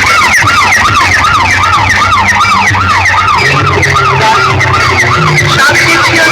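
Fast warbling siren effect, about three rising-and-falling sweeps a second, played very loud through a DJ sound-box system over a steady bass.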